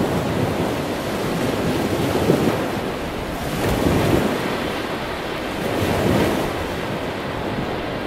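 Ocean surf: small waves breaking and washing in, a continuous rushing hiss that surges louder about every two seconds.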